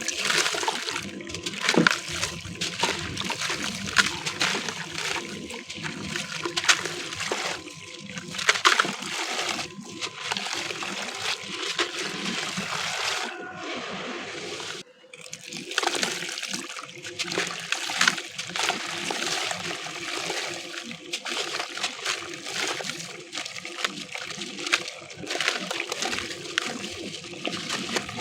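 Gritty concrete chunks being crumbled in water: continuous wet crunching and crackling with many sharp gritty clicks, over water trickling and splashing. It breaks off briefly about fifteen seconds in.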